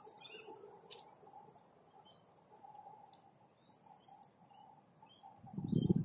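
Faint, scattered bird chirps over quiet outdoor background noise. Near the end, a loud low rumbling noise sets in and becomes the loudest sound.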